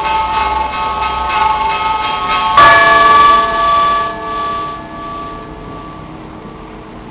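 Orthodox church bells ringing: quick repeated strikes on small bells over sustained ringing, then about two and a half seconds in a single loud stroke with deeper tones joining. The quick strikes stop and the bells ring on and die away.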